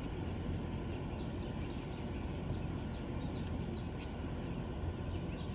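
Outdoor background: a steady low rumble, with small birds giving short faint chirps every so often.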